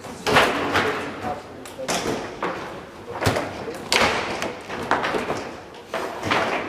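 Foosball play on a Garlando table: a run of sharp knocks and clacks, irregularly spaced, as the ball is struck by the rod-mounted figures and the rods knock against the table.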